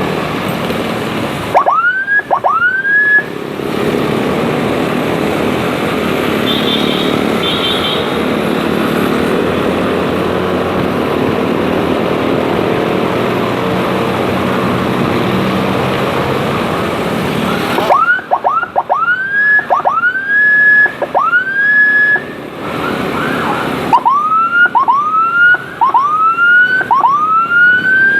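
Electronic escort siren sounding a string of rising whoops, each sweeping up fast and levelling off; two come near the start, then a stretch of steady rushing riding noise, then a run of about one whoop a second from about two-thirds of the way through.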